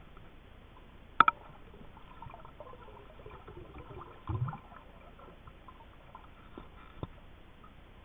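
Underwater sounds picked up by a submerged camera: a sharp double click about a second in, a low thump a little after four seconds, and a smaller click near the end, over a faint watery hiss with faint squeaks between.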